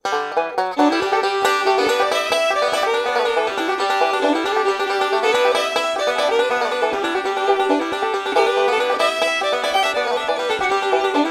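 Background music: a fast, banjo-led plucked-string tune in a bluegrass style.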